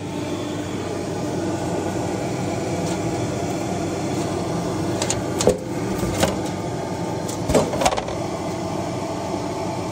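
Steady whirring of a fan or blower running, with a handful of light clicks and taps from about halfway through as thin laser-cut plywood pieces are lifted off the laser's metal honeycomb bed.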